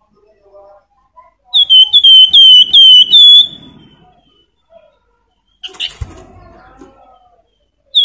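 Javan fulvetta (flamboyan) singing a loud whistled phrase of about six quick, clear down-slurred notes, starting about a second and a half in. Softer chirps come before it, and a sharp knock with some rustling comes near six seconds as the bird hops about its cage.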